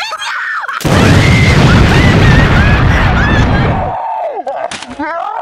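A watermelon bound with hundreds of stretched rubber bands bursting about a second in: a sudden loud burst, then about three seconds of loud, rumbling noise with people yelling over it.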